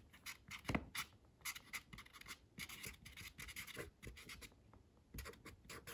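Faint scratching of handwriting on paper: quick short strokes as Japanese characters are written in red. There is a brief lull about two thirds of the way through.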